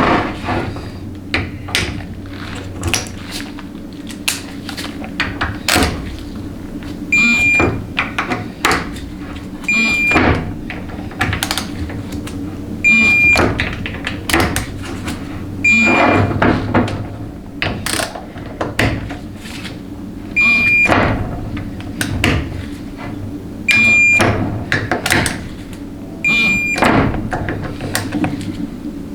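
Valve body bolts being torqued with a digital torque wrench: clicking and knocks from the wrench, and a short electronic beep roughly every three seconds, seven in all, each as a bolt reaches the 53 inch-pound setting.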